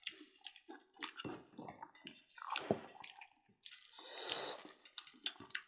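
Close-miked eating sounds: wet chewing and lip smacks as pork and rice are eaten by hand, in a quick irregular run of small clicks, with a brief breathy hiss about four seconds in.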